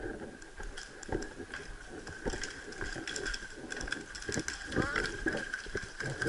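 Scattered semi-automatic airsoft shots and BB hits around the field: irregular sharp snaps and clicks, over a steady high-pitched hum.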